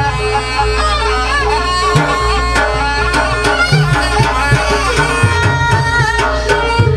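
Traditional Banyuwangi folk music accompanying a barong dance: hand drums play a fast, steady rhythm under a bending, wavering melody line.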